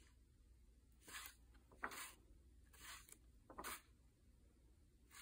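Paper pages of a softcover workbook being turned by hand: about four quick, soft swishes spread over a few seconds.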